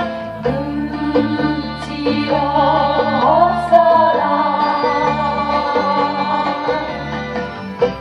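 A 1970s Korean folk ballad playing from a vinyl LP on a turntable.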